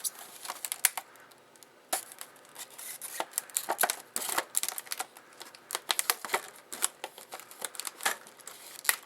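Stiff plastic clamshell packaging being cut and pried open with a small revolver-mounted bayonet blade: irregular crackles, snaps and scraping clicks of the plastic, with a short lull about a second in.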